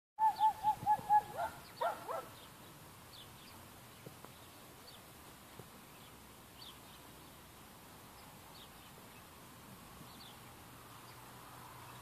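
Hooded crow (grey crow) call bird calling from its cage: a quick run of about five short caws, then two or three rougher calls, all within the first two seconds. After that, faint distant small-bird chirps.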